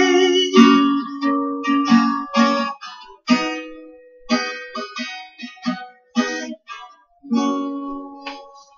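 Acoustic guitar playing the closing bars of a song unaccompanied: plucked notes and strummed chords, each left to ring and die away, with a longer held chord near the end.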